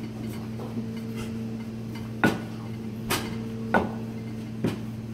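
Wooden rolling pin rolling out pasta dough on a plastic cutting board, with four sharp knocks less than a second apart from about two seconds in, over a steady low hum.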